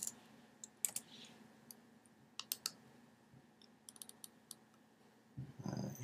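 Faint, scattered computer keyboard keystrokes and mouse clicks, a single tap or a few at a time, with a short low sound near the end.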